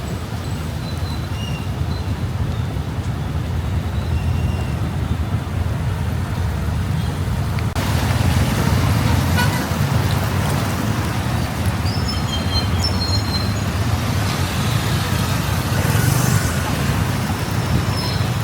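Steady road traffic noise heard while riding a motorbike through city streets: engine and tyre rumble with a few short high tones like distant horns, growing a little louder about halfway through.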